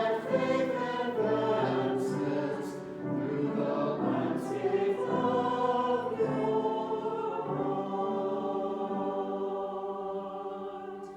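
Church choir singing the closing phrase of an anthem, then holding a final chord from about six seconds in that dies away near the end.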